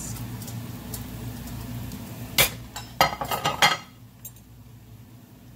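Kitchenware clinking and knocking at the stove: one sharp clink about two and a half seconds in, then a quick cluster of clinks and knocks a second later, over a low steady background.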